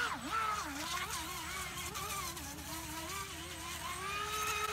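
Proboat Recoil 17 RC boat's brushless electric motor whining as the boat runs across the water. Its pitch dips sharply in the first second with throttle changes, then wavers and climbs slowly near the end.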